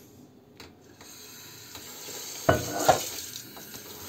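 Metal kettle knocking twice against the sink, about two and a half seconds in, as it is set down under a running kitchen tap; the water's steady hiss builds up around it.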